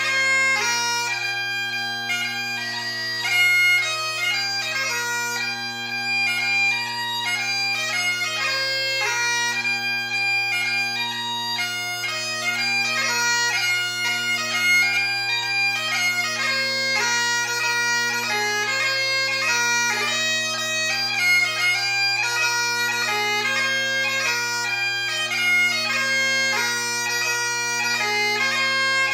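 Great Highland bagpipe played solo in a strathspey and reel set: steady drones under a quick, constantly changing chanter melody.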